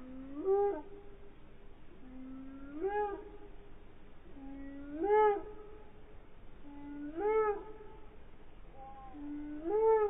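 Martial eagle calling, slowed down: five drawn-out calls about two seconds apart, each a low held note that swoops up and drops away.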